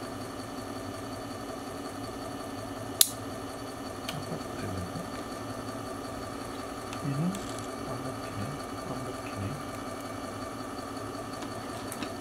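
Small 12 V geared DC motor running with a steady hum. A single sharp click about three seconds in.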